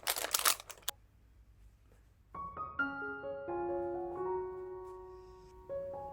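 A short burst of noise at the very start, then a quiet gap, then gentle background piano music coming in a little over two seconds in, its notes entering one after another.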